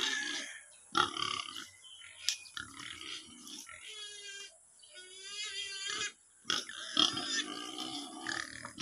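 A steel shovel chopping and scraping into damp soil, with sharp strikes about a second in and again near seven seconds. Two drawn-out pitched groans come in the middle, between the shovel strokes.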